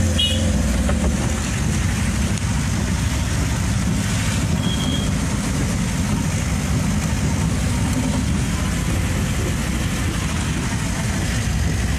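Engine of a moving vehicle running steadily through heavy rain, over a steady hiss of rain and tyres on the wet road.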